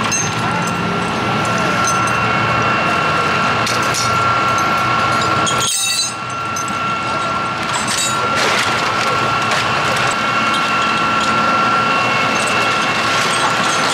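Steady running of heavy vehicle machinery with a continuous high whine over it, broken by a brief cut about six seconds in.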